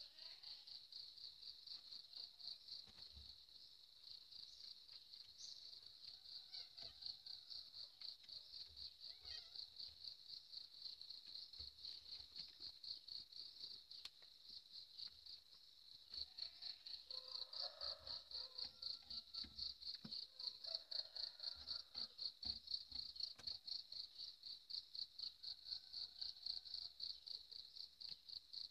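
An insect chirping in a steady, high-pitched trill of rapid, even pulses.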